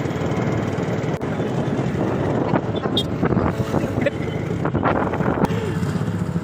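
Steady wind buffeting the microphone over a low rumble, with a few brief knocks and faint voices near the middle.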